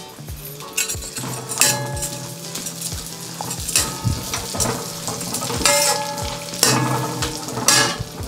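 Metal ladle stirring chopped cashews and raisins frying in ghee in a stainless-steel kadai: a light sizzle with irregular scrapes of the ladle against the pan.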